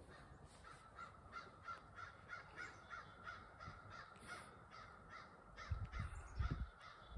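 A crow cawing over and over in a rapid run of faint caws, about three a second. A few low thuds come near the end.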